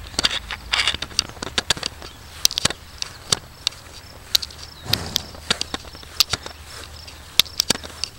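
Footsteps of a hiker walking across a grassy pasture, heard as many irregular sharp clicks and crackles over a steady low rumble.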